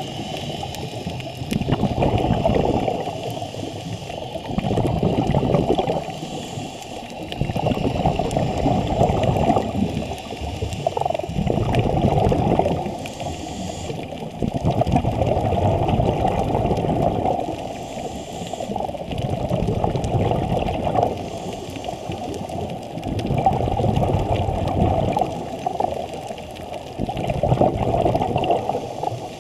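A scuba diver breathing through a regulator, heard underwater: bubbling gurgles of exhaled air that swell and fade every three to four seconds.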